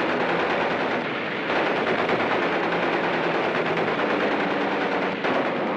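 Rapid machine-gun fire, continuous and dense, easing a little for about half a second about a second in.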